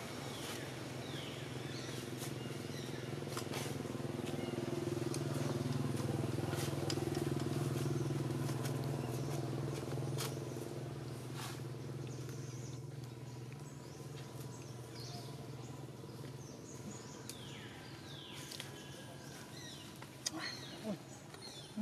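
A low, steady motor hum that grows louder over the first several seconds and then fades away about three-quarters of the way through, like a vehicle passing at a distance. Short falling chirps and scattered clicks sound over it.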